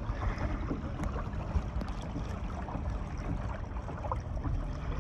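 Water washing and splashing along the hull of a plastic kayak being towed through calm water, over a steady low rumble.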